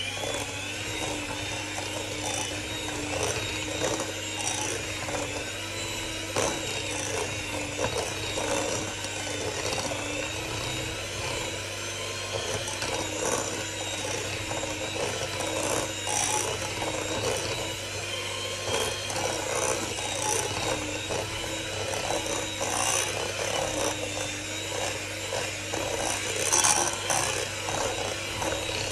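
Electric hand mixer running steadily, its beaters clicking and scraping against a glass bowl as they work through stiff, crumbly butter cookie dough.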